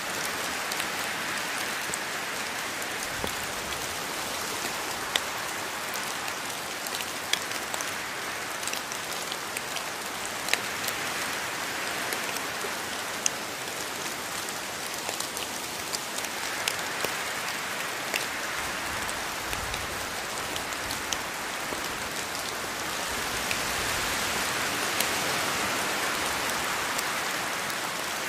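Steady rainfall, a dense even hiss with scattered sharp drops striking close by, growing a little louder near the end.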